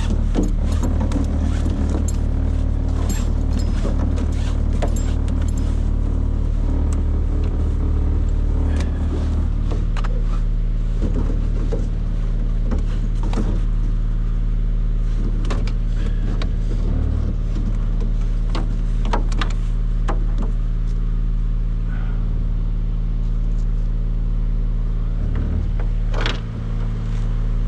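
An engine running steadily at a low pitch, its deepest part easing off about a third of the way through, with many scattered clicks and knocks over it.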